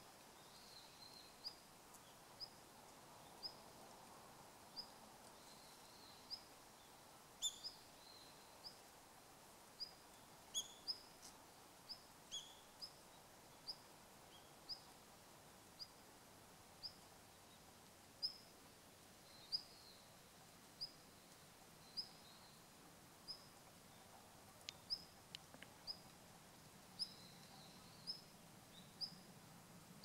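Male long-tailed rosefinch giving its call: short, high, rising whistled notes, repeated about once a second, with a few louder notes a third of the way through.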